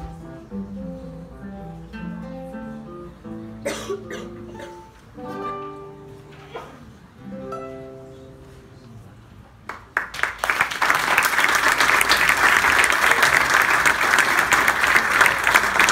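Two classical guitars playing a duet of plucked notes, the piece ending about seven seconds in. From about ten seconds in, an audience applauds loudly and steadily.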